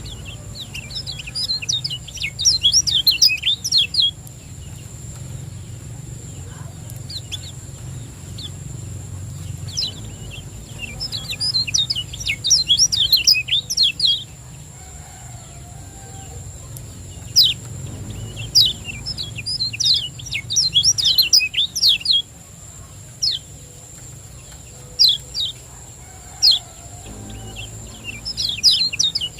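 Kecial kuning, a yellow white-eye, chirping in rapid bursts of thin, high notes: three bursts of about three seconds each, with scattered single chirps between them. A faint steady high whine and a low hum lie underneath.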